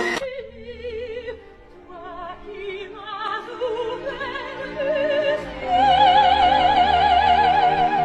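Operatic singing with strong vibrato over music, a voice holding long notes that get louder about halfway through.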